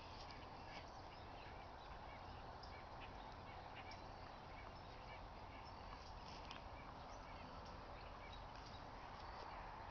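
Faint outdoor ambience: a steady hiss with scattered short, high chirps and faint ticks.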